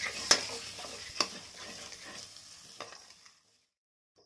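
Metal spatula stirring and scraping thick masala paste frying in mustard oil in a stainless steel kadhai, over a steady sizzle, with two sharp scrapes against the pan in the first second and a half. The masala is fried to the stage where the oil separates from it. The sound fades out near the end.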